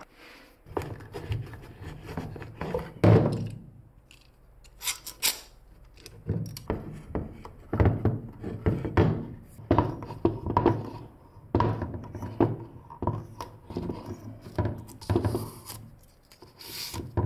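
Metal bar clamps being handled and screwed tight on a plywood box: irregular clanks and knocks of the clamps against wood and each other, with the rub of the clamp screws turning.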